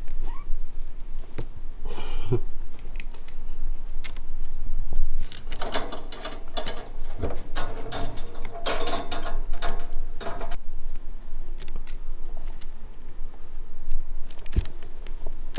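Metal chain and ring latch rattling on a white wire pet pen's gate as it is unfastened and swung open. The rattling is densest in the middle stretch, with scattered clicks and rustles before and after.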